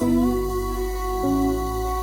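Background music: sustained synth chords over a deep bass that comes in at the start, with a chord change a little over a second in.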